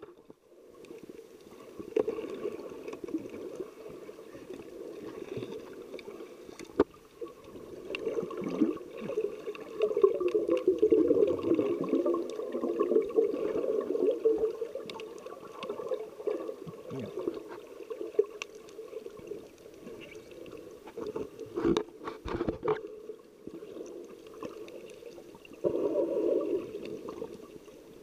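Muffled water sloshing and bubbling as picked up by a camera in an underwater housing, swelling louder in the middle and again near the end, with a few sharp clicks.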